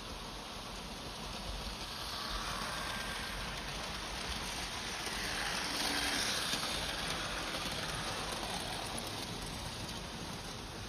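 Märklin model trains running on metal M-track: a steady rolling rattle that swells about halfway through as a train passes close by.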